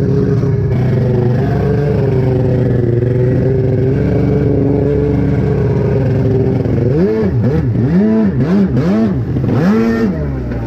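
Two-stroke engine of a Yamaha Superjet stand-up jet ski running at a steady low throttle. About seven seconds in, the revs rise and fall quickly about four times, then once more in a longer swell near the end.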